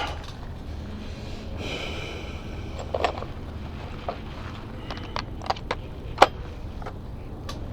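Small metal clicks and knocks from handling hand tools and bike parts, scattered irregularly with the sharpest about six seconds in, after a brief rustle, over a steady low hum.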